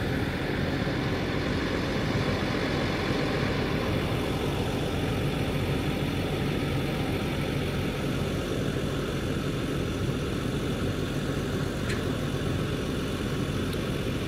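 Flatbed tow truck's engine idling steadily, with a couple of faint clicks near the end.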